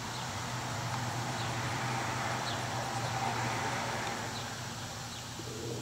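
A vehicle going by: a rushing noise that swells over the first three seconds and fades again, over a low steady hum, with faint high chirps now and then.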